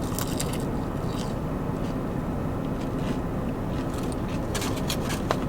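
Crisp crunching and mouth sounds of biting into and chewing fried chicken tenders, in short clusters, over a steady low rumble of an idling car.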